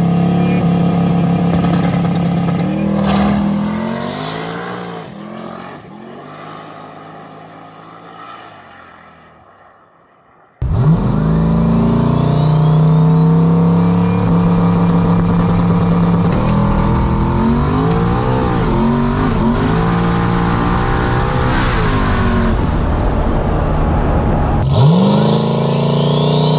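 Turbocharged 5.3 LS V8 in a Fox-body Mustang making a hard street pass: the engine pulls with a rising turbo whine, then fades away over several seconds. About ten seconds in it cuts sharply back to the engine running loud with a turbo whine climbing again, and there is another sudden cut near the end.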